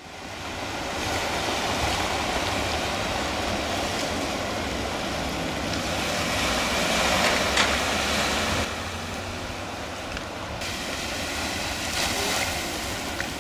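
Ocean surf washing and breaking at the harbour, a steady rushing noise with wind rumbling on the microphone; the sound changes suddenly a couple of times.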